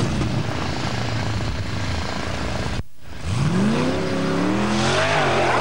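Formula off-road competition buggy engine running steadily, then revving up with a rising, wavering pitch after a brief dropout in the recording a little past halfway.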